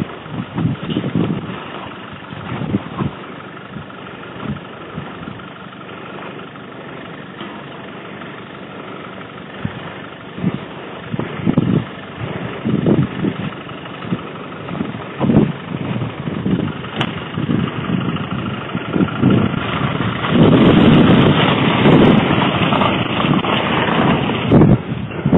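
Footsteps through grass and rough ground, with a vehicle engine idling. The engine grows louder in the last few seconds, as it is passed close by.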